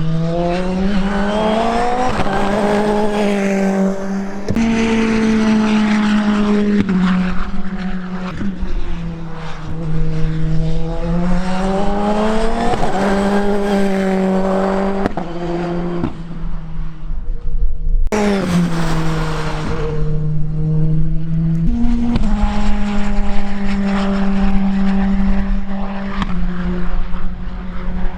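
Praga R1T race car engine at racing pace, its note climbing and falling again and again through shifts and braking. There are sudden jumps in the note about 4 s in, near 18 s and near 22 s.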